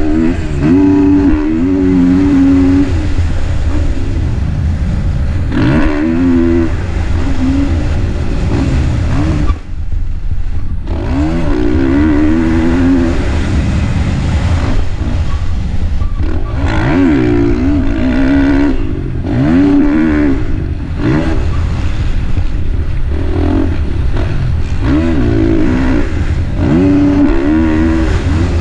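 KTM 450 four-stroke single-cylinder motocross engine revving up and down as the bike is ridden hard around a dirt track, heard close from an onboard camera. The throttle is opened and shut over and over, with a short drop-off about ten seconds in.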